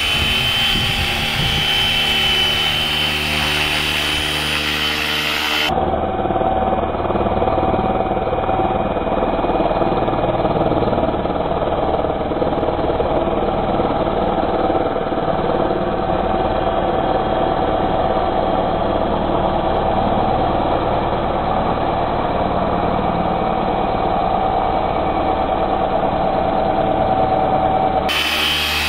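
Electric RC helicopter on Flywing FW450 V3 mechanics in flight: a steady whine from its brushless motor and drive with the two-blade main rotor. The sound turns duller about six seconds in and brightens again near the end.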